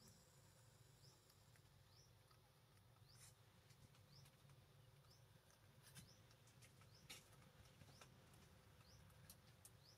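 Near silence: faint outdoor ambience with a short, high, rising chirp repeated about twice a second and a few light clicks.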